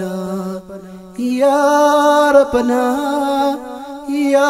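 Nasheed music between sung lines: long, wordless held vocal notes that step up in pitch about a second in and briefly soften near the end.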